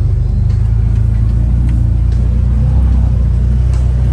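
Off-road vehicle engine running steadily under way, heard from aboard as a loud low drone, with a few light knocks and rattles from the ride over rough ground.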